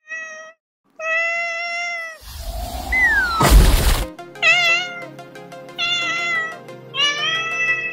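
Kitten meowing, a short meow and then a long one. A rush of noise swells with a falling whistle through it and ends in a loud burst about four seconds in. Then music with a steady ticking beat comes in under three more meows.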